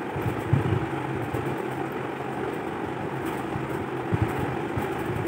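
Steady mechanical hum with an even noise over it and a low drone, broken by a few soft low thumps.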